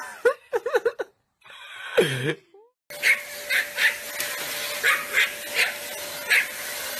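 Dogs vocalizing: first a dog's wavering, whining calls that slide up and down in pitch, then, after a short break, a small dog's repeated short yaps, about two a second, over a steady background hum.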